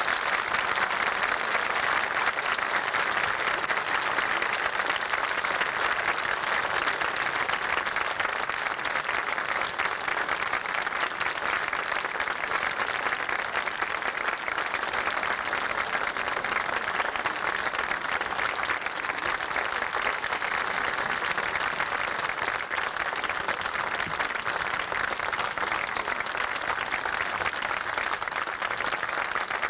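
Audience applauding steadily with dense, even clapping that holds for the whole stretch.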